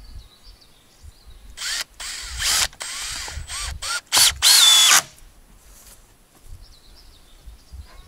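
Cordless drill run in a series of short trigger bursts into the end of a wooden log stake, the motor speeding up and slowing down with each burst. The last burst, about four seconds in, is the longest and loudest.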